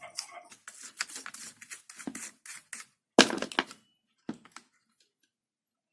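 Small scratchy clicks and rattles of a set-top box's power supply board being handled and cleaned of dust, with one louder clatter about three seconds in and a few last clicks before it goes quiet.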